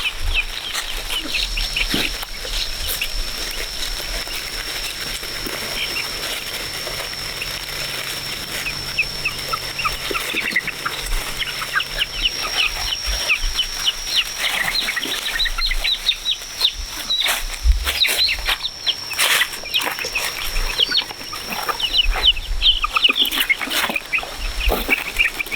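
Chickens clucking on a farm, many short high calls overlapping, busier in the second half, over a steady high whine.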